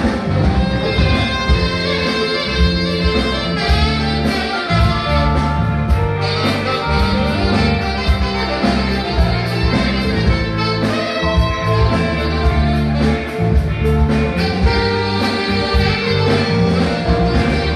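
Live band playing an instrumental with a steady beat: saxophone lead over electric guitar, drum kit and keyboards, with trumpet at the start.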